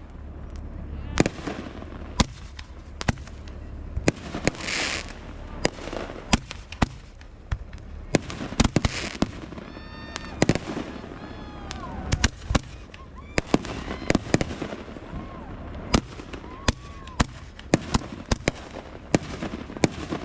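Fireworks going off: sharp bangs and pops, at times several a second, with a couple of longer hissing, crackling bursts.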